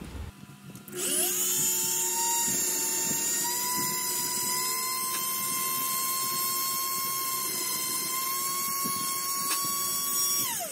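Flexible-shaft rotary tool spinning up about a second in, running with a steady high whine that creeps up slightly in pitch, then winding down sharply near the end.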